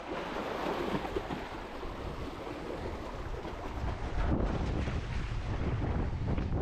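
Wind blowing across the microphone, with ocean waves washing behind it; it gets a little louder about four seconds in.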